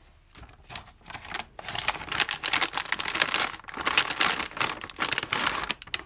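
Foil pouch packaging crinkling as sealed plastic packets are handled and pulled out of it: a dense run of fast rustling crackles that starts about a second and a half in and dies away just before the end.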